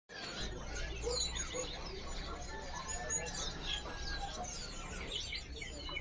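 Many small caged songbirds chirping together, with short high chirps and whistles overlapping densely.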